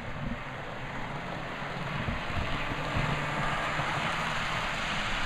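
Model diesel locomotive (Atlas Dash 8-40CW) running along the track, its motor and wheels whirring and rumbling. The sound grows gradually louder as the engine, set to slow momentum, picks up speed and comes past.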